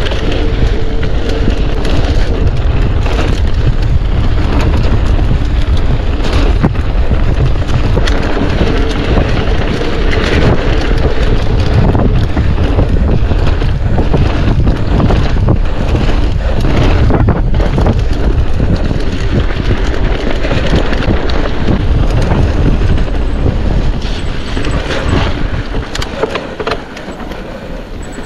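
Wind buffeting a mountain-bike camera's microphone, with the bike rattling and knocking over a rough trail. The noise eases off near the end.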